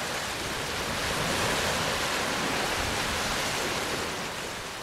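Small waves washing up over a sandy beach: a steady rush of surf that swells a little about a second in.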